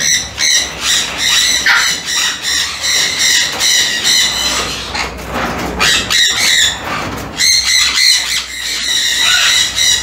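Parrot squawking in a quick, repeated series of even-pitched calls, about three a second; the calls thin out midway and pick up again near the end.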